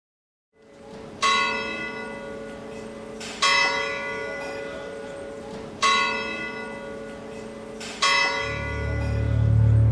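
Church bell tolling four slow strokes, each ringing out and dying away before the next. Low music fades in near the end.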